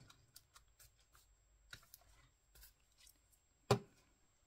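Paper cut-outs and a plastic glue bottle being handled on a craft mat: soft paper rustles and small clicks, with one sharp knock about three and a half seconds in.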